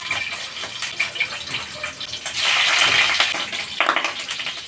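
Pre-boiled pork pieces hitting hot oil in a wok, sizzling and crackling with spatters, loudest about halfway through as more meat goes in, with a metal spoon scraping the pan.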